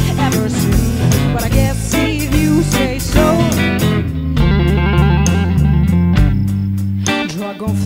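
Rock music led by guitar, with a bass line under a steady beat.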